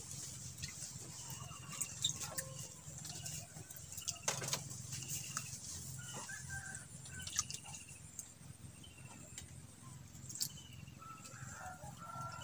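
Birds calling in short, high chirps that repeat at intervals throughout, over a low steady hum, with a few sharp clicks.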